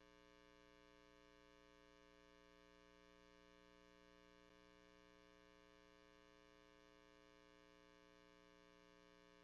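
Near silence: a faint, steady hum.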